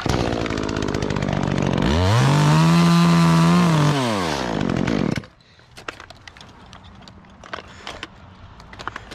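Chainsaw running, revved up to full speed about two seconds in, held there, then let back down and shut off about five seconds in. A few light clicks and knocks follow.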